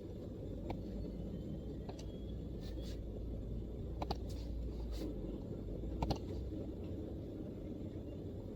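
Sparse, isolated MacBook keyboard keystrokes, about seven single clicks a second or so apart, with no run of fast typing. Under them is a steady low background rumble and hum.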